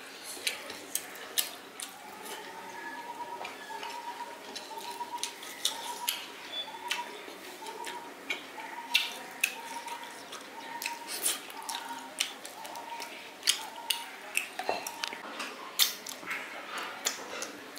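Close-up eating sounds: wet chewing and squishing of food, with scattered sharp clicks of food and fingers against a plate.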